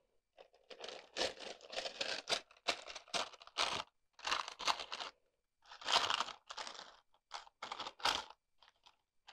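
Baking-paper liner in a tin mould crinkling and rustling in irregular bursts as sweet yeast dough is pressed into it by hand.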